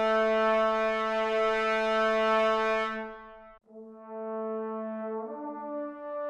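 Sampled trombone section played from virtual-instrument libraries, long sustained notes. A held note from CineBrass trombones fades out about three seconds in. After a short gap, Cinematic Studio Brass trombones hold a new note, and a higher note joins about five seconds in.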